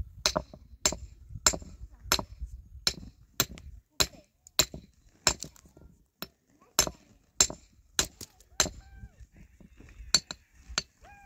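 Sharp clinking knocks repeated at a steady pace, about one every two-thirds of a second, with a short break about six seconds in.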